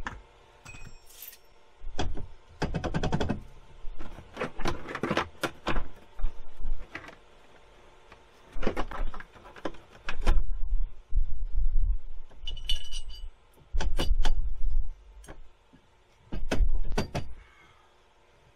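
Irregular clunks, knocks and rattles of hardware and tools being handled around a mobility scooter lift, with one short high squeak a little past the middle.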